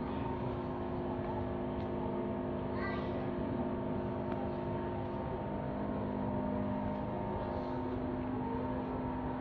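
A steady indoor drone of several sustained low tones over a soft background hiss. Some of the tones drop away about halfway through. A faint voice is heard briefly about three seconds in.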